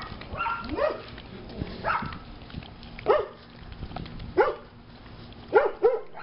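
A dog barking repeatedly, roughly once a second, with a quick double bark near the end.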